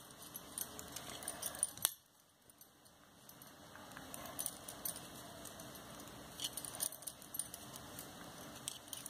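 Knitting needles faintly clicking and tapping against each other as stitches are worked by hand. A sharper click comes just before two seconds in, then a second of near silence.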